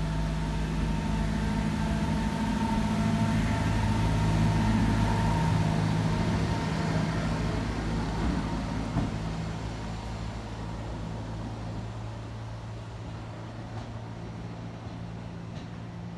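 Class 139 lightweight railcar pulling away: a steady low engine hum that grows slightly louder over the first few seconds as it passes, then fades as it draws off into the distance.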